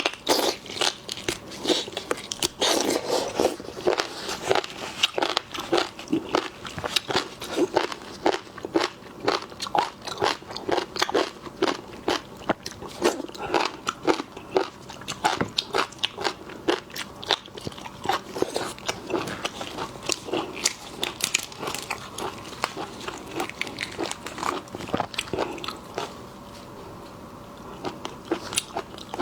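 Seafood being eaten close to the microphone: rapid crunching and crackling of shell and flesh with wet chewing, thinning out near the end.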